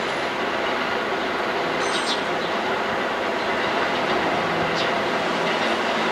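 Elevated subway train running past: a steady rumble with a few brief high metallic squeals.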